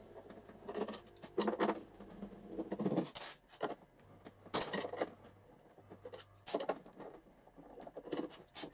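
T20 Torx screwdriver backing out the screws of a De'Longhi coffee machine's plastic back cover, giving irregular scratchy clicks and scrapes with short pauses between them.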